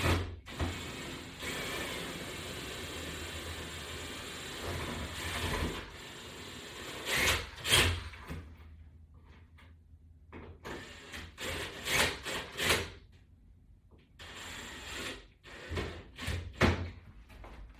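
Power drill running steadily for about six seconds as it works a screw in the latch bar's mounting board. A series of sharp knocks and clicks from handling the drill and wood hardware follows.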